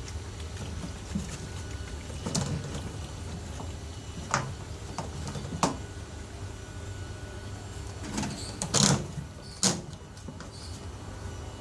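LG TurboDrum WT-R852 top-loading washing machine working a full load of bedding: a steady low motor hum, with several short splashes and thumps from the water and wet bedding moving in the drum. The loudest come about nine seconds in.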